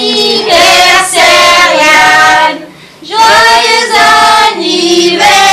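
A group of children and women singing a birthday song together in held notes, with a short pause for breath about halfway through.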